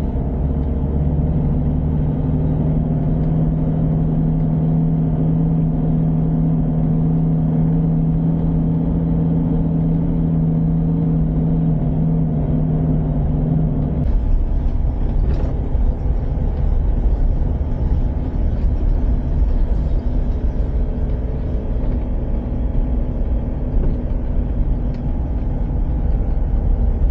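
A Mitsubishi's engine and tyre noise heard from inside the cab while driving. It starts as a steady low engine hum, then about halfway through turns into a rougher, noisier road rumble with a few light knocks.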